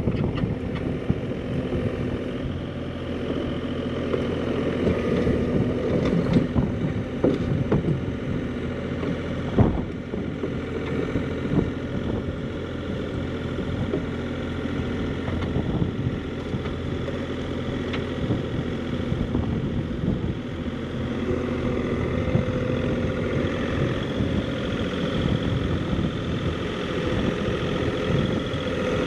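Kubota U50-5 mini excavator's diesel engine running steadily as the machine tracks across ground mats. There are a few sharp knocks and clanks in the first third.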